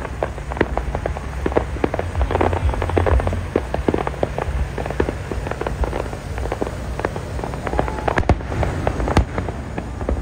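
Aerial fireworks going off in quick succession: many sharp bangs and pops at irregular intervals over a steady low rumble.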